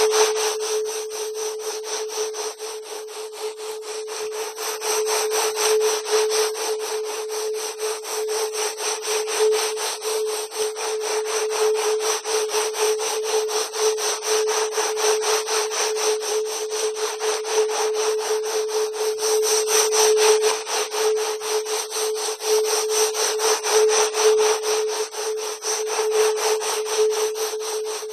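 Electronically generated 'wave genetics' sound file: a steady mid-pitched hum under a harsh, rasping noise that pulses rapidly and evenly, like sawing.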